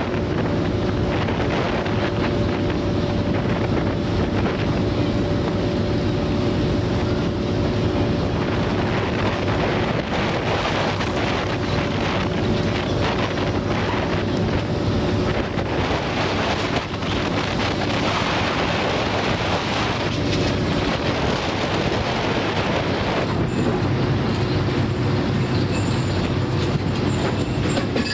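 Boat engine running steadily at sea with rushing wind and water noise; the engine note shifts, lower and fuller, a little over three-quarters of the way through.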